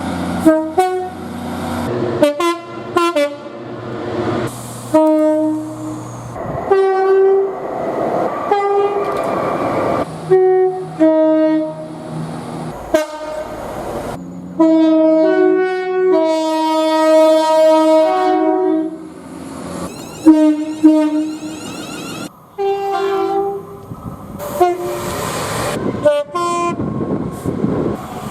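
A rapid succession of train horns from different trains, cut one after another: mostly short blasts and two-note toots, with one longer held multi-tone chord about halfway through.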